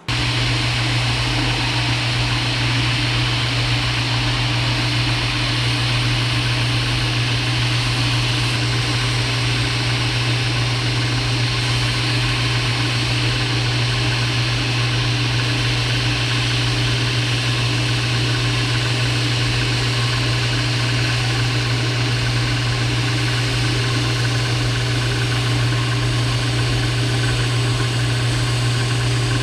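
Milling machine running steadily, a narrow end mill cutting a groove along a red oak board: a constant motor hum with an even cutting noise over it.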